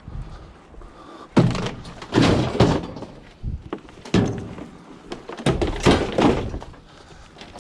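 A run of heavy thuds and bangs, about six of them, as scrap is thrown into a van and a door is slammed.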